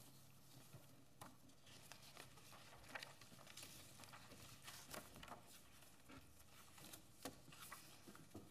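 Near silence: room tone with faint, scattered ticks and rustles of small handling noises at the desks.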